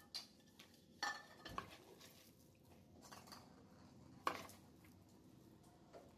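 A hand mixing ground chana dal batter with chopped onions and herbs in a plastic bowl: faint squishing, broken by a few sharp knocks and clicks. The loudest knocks come about a second in and just past four seconds.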